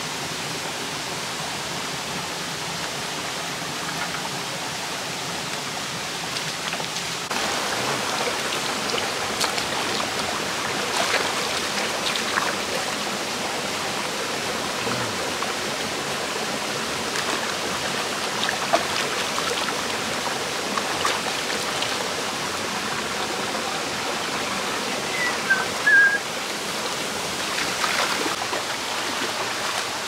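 Shallow rocky stream running steadily over stones, getting louder about seven seconds in, with scattered small splashes and knocks as a fish is handled and rinsed in the water. A brief high chirp stands out shortly before the end.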